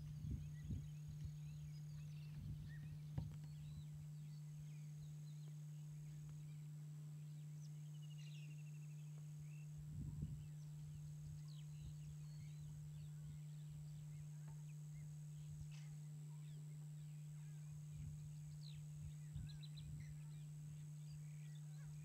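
Faint open-country ambience: scattered short bird chirps, with a brief trill about eight seconds in, over a steady low hum. A few dull low thumps come in the first few seconds and again around ten seconds in.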